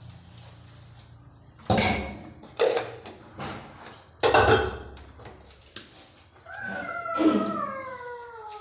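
Dishes being washed in a stainless-steel sink: plastic cups and a steel basin knocked together several times with short clatters. Near the end, a long animal call that falls steadily in pitch.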